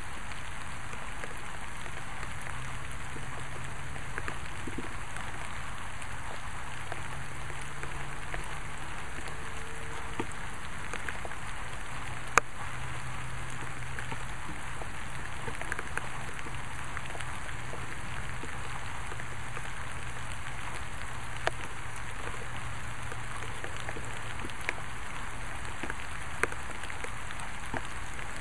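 Steady rain falling, with scattered sharp ticks of drops, the loudest about twelve seconds in. A faint low hum sits underneath for much of it.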